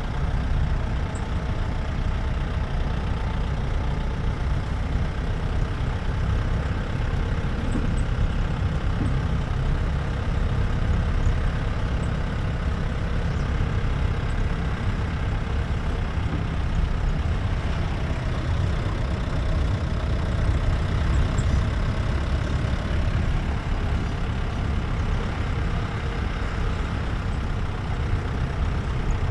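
Jeep engine running steadily as it drives along, a continuous low rumble heard from aboard the moving jeep.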